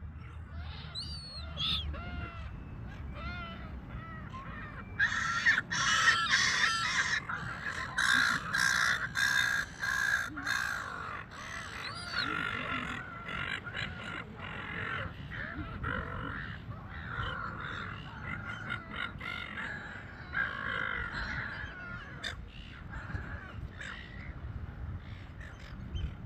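A flock of gulls calling over one another. The calls are densest and loudest from about five seconds in until about twelve seconds, then thin out to scattered calls.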